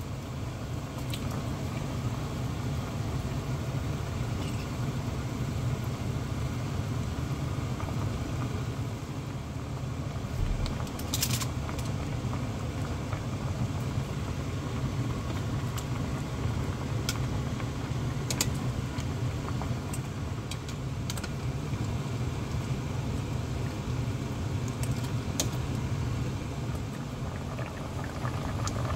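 Metal tongs clinking against a stainless-steel pot about half a dozen times as the contents are turned, over a steady low rumble.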